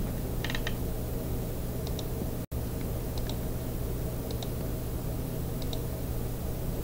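Computer mouse clicking about five times, a second or so apart, as points of a sketch line are placed, over a steady hum and hiss from the recording.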